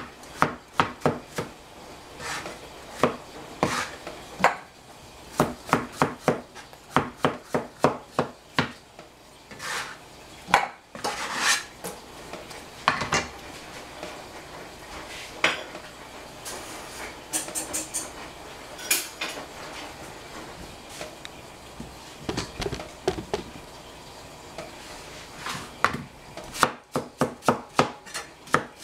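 Chinese cleaver chopping zucchini on a plastic cutting board: runs of sharp knocks, several a second, with pauses between. Now and then the runs give way to clatter as the cleaver is set down and pieces go into a steel pot.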